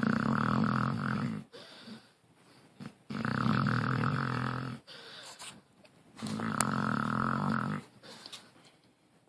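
Snoring: three loud snores, each about a second and a half long and about three seconds apart, with a softer breath after each.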